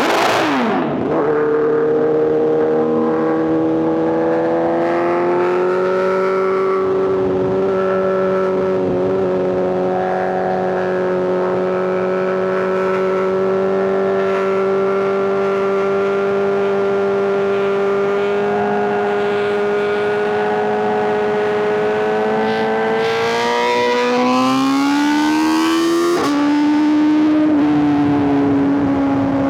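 Inline-four superbike engines riding at steady revs, one engine note over a second lower, steady one. Just after the start the pitch drops sharply. Near the end one engine revs up for about three seconds, the pitch falls abruptly with an upshift, and it settles at lower revs.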